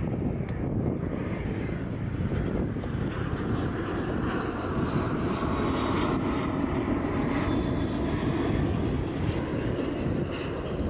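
Distant jet airliner high overhead: a steady, low, rushing rumble that swells a little midway through.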